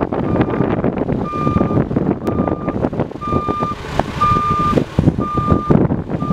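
Concrete mixer truck backing up: its reversing alarm beeps about once a second, each beep about half a second long, over the rumble of the truck's diesel engine.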